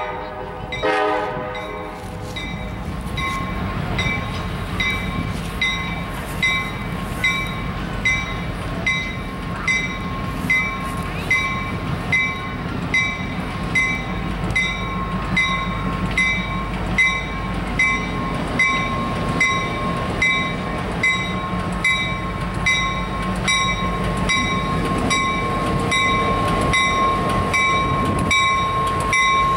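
Norfolk Southern GP38-3 diesel locomotive sounds a short horn blast about a second in. Its bell then rings steadily, a little under two strokes a second, over the rumble of the diesel engine, getting louder as the train draws close near the end.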